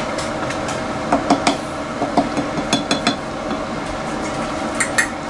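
Wooden spatula stirring thick cream stew in a stainless steel pot, giving scattered light knocks and clicks against the pot, in small clusters, over a steady background hum.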